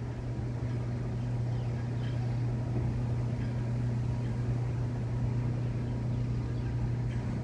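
Steady low mechanical hum with no change in pitch or level.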